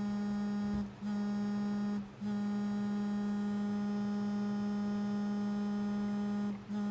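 Samsung Galaxy S3 smartphone's vibration motor buzzing on a desk as it plays back a custom vibration pattern: two short buzzes under a second each, then one long steady buzz of about four seconds, and another buzz starting near the end.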